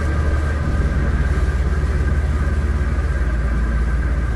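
Steady low drone of a diesel vehicle on the road, heard inside the cab, with a few faint steady high tones above it.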